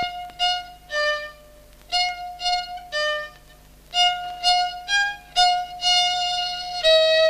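Solo violin playing a simple tune in three short phrases of bowed notes with brief pauses between them, the last phrase running into longer held notes.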